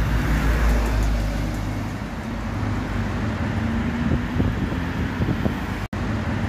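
Road traffic on a city street, with cars and buses passing and a deep rumble from a passing vehicle over the first two seconds. The sound drops out for an instant near the end.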